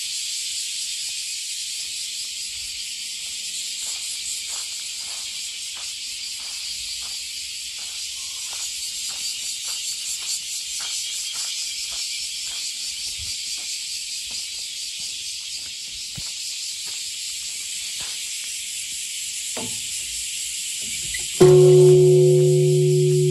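Footsteps on gravel, about two a second, over a steady high hiss; about 21 seconds in, a large bronze Japanese temple bell (bonshō) is struck once and rings on with a deep, steady hum.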